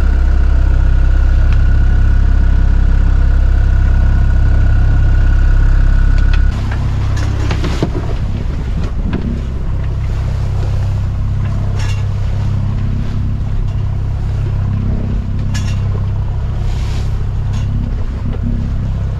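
A small yacht's inboard engine running steadily as the boat motors into a steep chop, with wind buffeting the microphone and waves splashing against the hull now and then. For the first six seconds or so the wind rumble is heavier, then it drops off suddenly.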